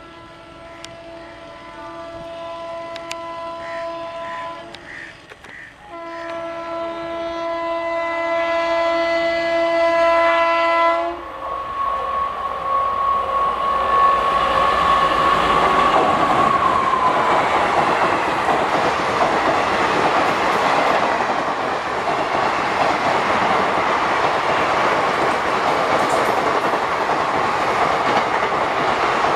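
Indian Railways electric locomotive sounding its horn in two long blasts. Then the express train passes at speed, its coaches rumbling and clattering over the rail joints, loud and steady.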